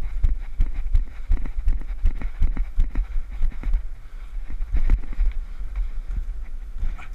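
Running footsteps on a flat felt roof, about three a second, then irregular knocks and bumps of hands and feet on metal ventilation housings during a climb. Wind rumbles on the microphone throughout.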